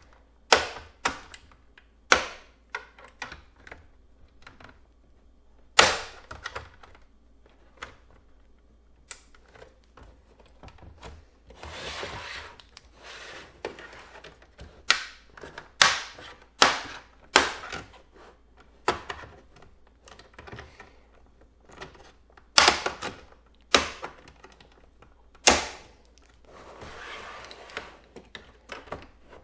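Plastic clips of an Xbox One S's black bottom cover snapping loose as it is pried off with an opening tool: sharp, irregular clicks and snaps, with a couple of stretches of plastic scraping.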